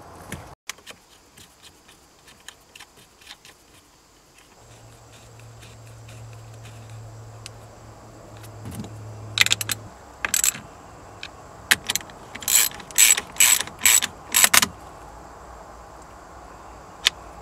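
Wrench clicking on a battery terminal nut as the cable clamp is tightened: a run of sharp, separate clicks in the second half, with a low steady hum just before them.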